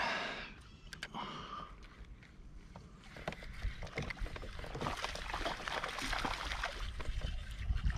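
Water splashing around a kayak, with quick clicking and rattling that grows louder from about three seconds in, as a hooked bass is fought and reeled in on a fishing rod.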